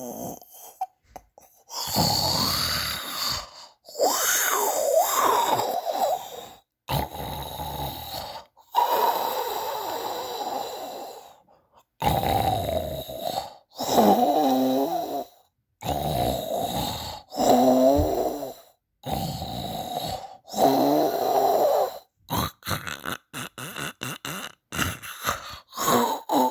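Snoring: repeated snores, each lasting about one to two seconds, with short silent gaps between them; some snores carry a pitched tone.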